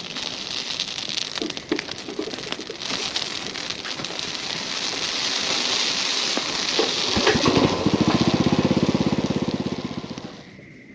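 Bonfire crackling and hissing. About seven seconds in, a louder, low, rapidly pulsing rumble swells up and dies away near the end.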